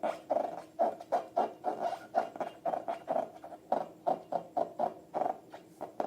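Slime being squeezed and worked by hand, a quick run of wet squelching sounds at about three a second.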